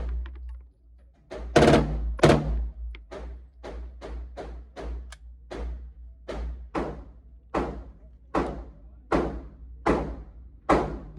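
Gunshots fired one at a time at a steady, slightly uneven pace, about one or two a second, some fifteen in all, each with a ringing tail. A low steady rumble runs underneath.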